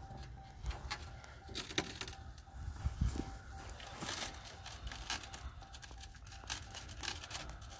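Scattered light clicks and taps of plastic window-regulator clips being handled and pried off the bottom edge of a truck's door glass, over low wind rumble on the microphone.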